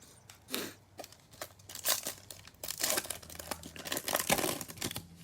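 Trading-card pack wrapper crinkling and tearing in hand: an irregular run of sharp crackles and rustles, the sound of a pack being torn open and its wrapper crumpled.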